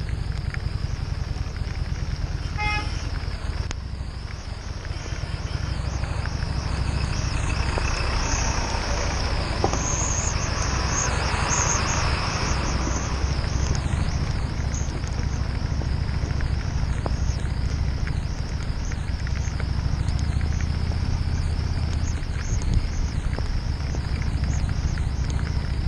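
Harley-Davidson Street 750's V-twin engine running at low speed, a steady low rumble under a hiss of wind and rain on the microphone. A brief high beep sounds about three seconds in, and the hiss swells for a few seconds from about eight seconds in, as from tyres through water and mud.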